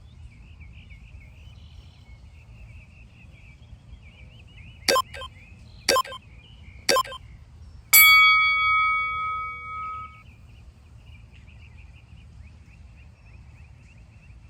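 Tabata interval timer signalling the end of a work interval: three short beeps a second apart, then a loud bell tone that rings and fades over about two seconds. Insects chirp faintly behind it.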